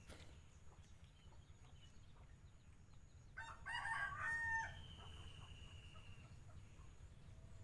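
A rooster crowing once, a little over a second long, starting about three and a half seconds in.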